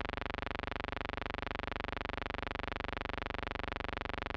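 A steady buzzing hum with many overtones and a rapid, even flutter, unchanging throughout. It is a constant background tone, not any sound of the deck work.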